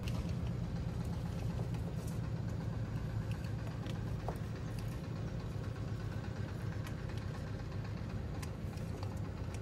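A car engine idling steadily, with a few light ticks over it.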